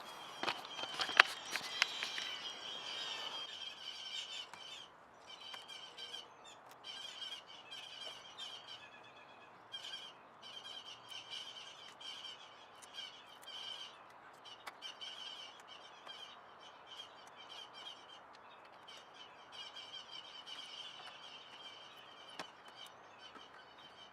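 Small birds chirping repeatedly in short bursts throughout. A few sharp clicks and some handling noise sound in the first couple of seconds, the loudest about a second in.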